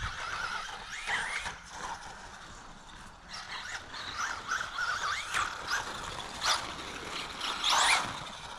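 Traxxas Bandit RC buggy with a brushless VXL-3s system driving over rough ground. The motor whine rises and falls with the throttle, over tire and drivetrain noise and scattered knocks, and the loudest burst comes near the end.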